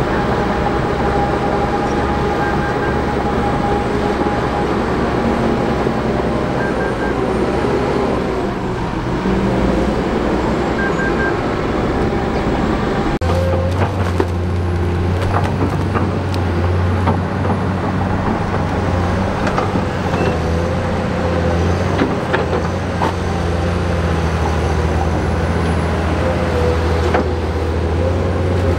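Heavy bulldozer diesel engines running steadily. The engine note changes abruptly about thirteen seconds in, and a few sharp knocks follow.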